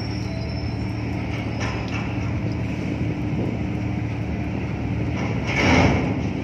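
Steady low drone of ship machinery, with several constant tones in it. About five and a half seconds in, a louder hissing swell rises and fades within a second.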